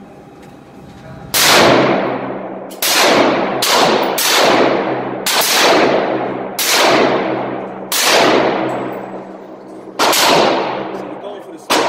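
Gunshots on an indoor shooting range, fired in neighbouring lanes: about nine shots at uneven spacing, each a loud crack followed by a long echoing decay off the range walls.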